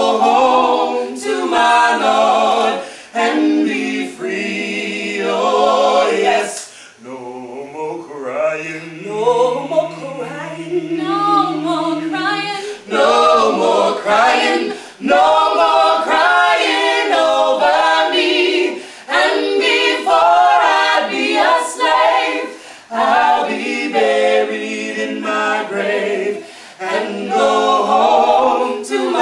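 Several voices, women and men, singing unaccompanied on stage. For a few seconds about a third of the way in, the singing thins to fewer voices over a low held note.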